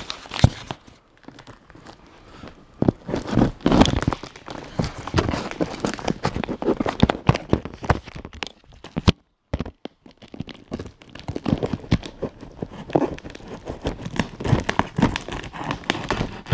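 Packing tape being slit and torn off a cardboard parcel with a small knife, with rustling and crinkling of the cardboard and plastic wrap: irregular scrapes, rips and crackles, broken off for half a second about nine seconds in.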